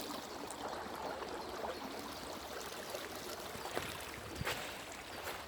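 Stream water running and trickling over rocks, a steady rushing wash, with a couple of faint knocks near the end.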